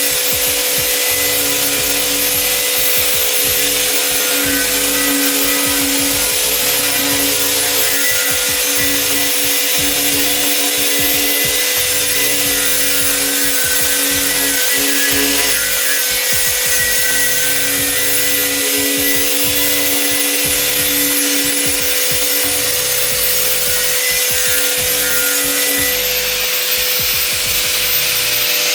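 A power tool runs steadily, scouring the surface of a cast iron pot lid (솥뚜껑) with an abrasive, as the first stage of seasoning it.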